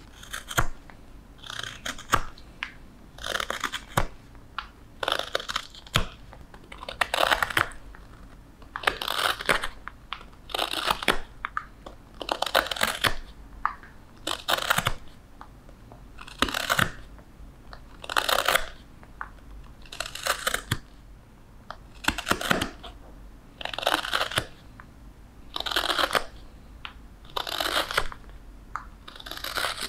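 Hook knife scooping out the bowl of a wooden spoon: a steady run of short scraping cuts through the wood, about one a second and sometimes in quick pairs.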